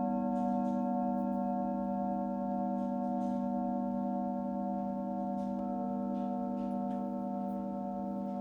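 Singing bowls sounding together in a steady, layered drone, the lowest tone strongest, with another higher tone joining a little over halfway through.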